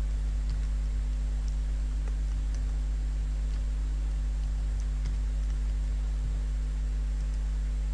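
Steady low electrical hum in the recording, with a few faint clicks from the computer keyboard and mouse as text is entered in the editor.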